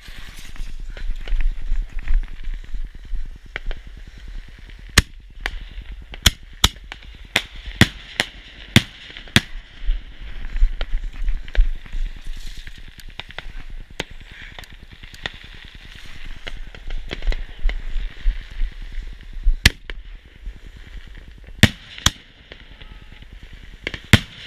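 Consumer fireworks going off: a string of sharp bangs and pops at irregular intervals, packed closest together about five to nine seconds in, with another pair of loud reports near the end.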